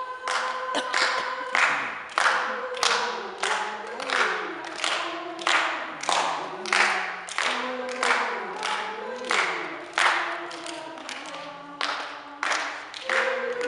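A children's choir singing a song unaccompanied, clapping along in a steady rhythm of about two to three hand claps a second.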